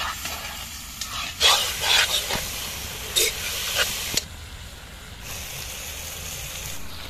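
Meat sizzling and frying in a karahi over a wood fire, with a spoon stirring and scraping the pan a few times in the first four seconds. After that the sizzle goes on more quietly.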